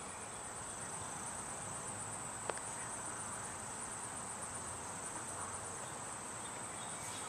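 Steady high-pitched chorus of insects such as crickets, with one faint click about two and a half seconds in.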